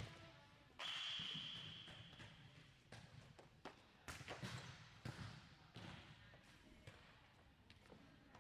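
Volleyballs being hit and bouncing on a gym floor, a run of sharp slaps and thuds with a spike hit and the ball striking the floor around four seconds in. About a second in comes a high, steady squeal lasting about a second.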